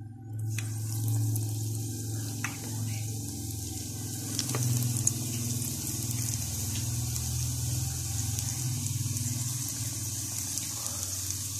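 Battered chicken pakoras deep-frying in hot oil: a steady sizzle that sets in about half a second in as the pieces go into the oil, with a few light clicks.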